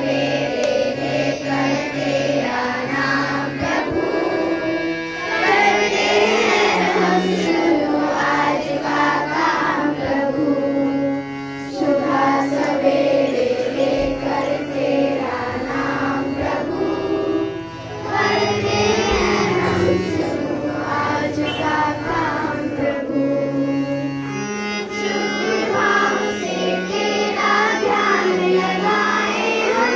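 A school music band performing a song: voices singing over steady held instrumental notes that change every second or two.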